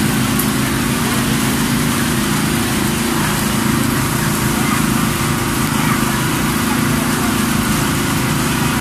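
A small engine drones steadily. A hiss lies above it, with murtabak frying on a large flat griddle.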